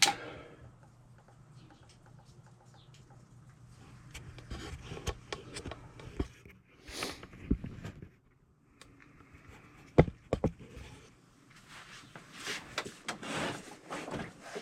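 Handling noise while setting up to drain a small portable generator's engine oil: scattered knocks, clicks and rustling, with two sharp knocks about ten seconds in.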